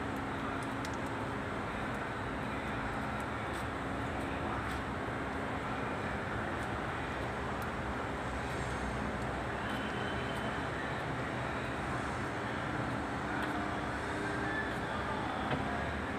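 Steady background road-traffic noise with a low, even hum running under it, and a few faint light clicks.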